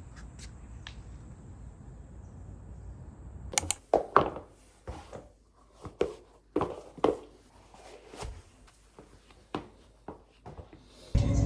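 A series of irregular knocks and clinks, as of objects being handled, with a low steady hum before them.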